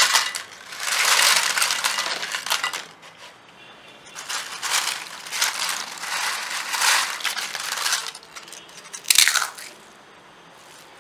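Freshly fried, crisp potato chips crackling and rattling as they pour onto a plate, then crunching in several separate bursts as a hand stirs through them and crushes them, with a short lull near the end. The loud, brittle crunch is the sign that the chips are fried fully crisp.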